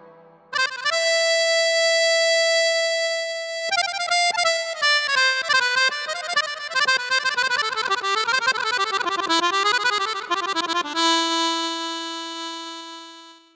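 A Korg Pa arranger keyboard plays an accordion-like solo voice. A long held note gives way about four seconds in to a fast, ornamented melodic run, which ends on a second long note that fades away.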